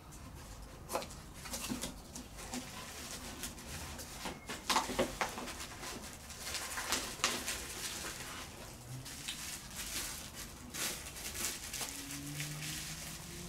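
Hands rummaging in a cardboard box with bubble-wrap packaging: scattered rustles, scrapes and light taps, with a few brief low hums near the end.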